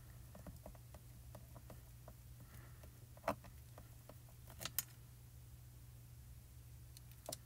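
Quiet room tone with a steady low electrical hum, and a few small clicks and taps as hands press a clear acrylic stamp block down onto card stock on a craft mat, the sharpest about three seconds in, near five seconds and near the end.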